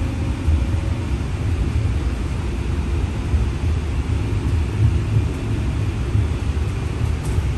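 Steady low rumble of a CityLYNX Gold Line streetcar running along its track, heard from inside the passenger cabin.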